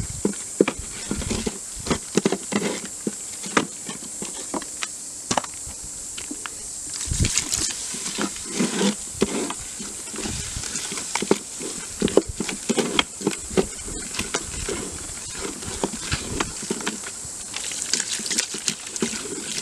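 Wooden spoon stirring a thick flour-and-water paste in the pot of an old deep fryer, with irregular wet squelches and scrapes against the pot. The flour is being cooked into hot water as the binder for homemade paint.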